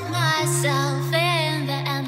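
Background music with a sung or vibrato melody over sustained low notes.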